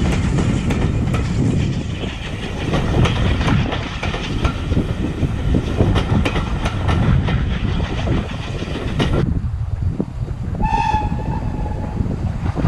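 Passenger coaches rolling past close by, their wheels clicking over the rail joints, until the sound cuts off suddenly about nine seconds in. Near the end, over wind noise, a steam locomotive whistle sounds one short, steady note.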